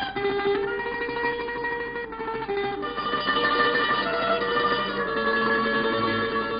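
Slavonian tamburica band playing an instrumental break: a quickly picked melody over strummed chords, without singing.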